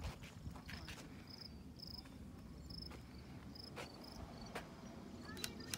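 An insect chirping: faint, short, high chirps repeating about twice a second, with scattered footsteps crunching on a gravel trail.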